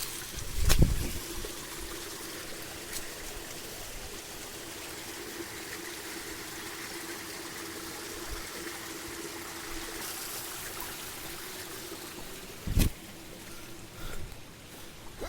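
Water running and trickling along an irrigation channel into a paddy field, a steady flow with a faint steady hum under it. Two short thumps break in, about a second in and near the end.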